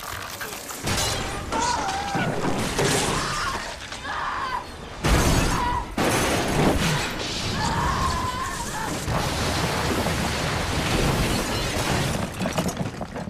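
Subway train crash: continuous grinding and shattering of metal and glass, with a heavy crash about five seconds in, and people screaming over it.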